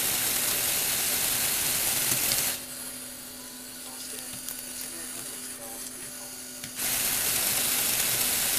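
Lego Technic roller conveyor driven by small electric motors, running with a steady hum. A loud, even rushing rattle fills the first two and a half seconds and returns about seven seconds in, and drops to a quieter whirr in between.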